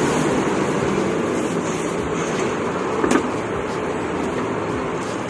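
Steady street traffic noise, with a single short knock about three seconds in.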